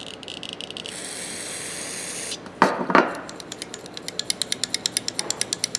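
Aerosol carburetor cleaner hissing from its nozzle tip for about two seconds as it is sprayed into the pivot of a pair of needle nose pliers. Then come two sharp knocks, then rapid clicking of about six a second as the pliers' pivot is worked.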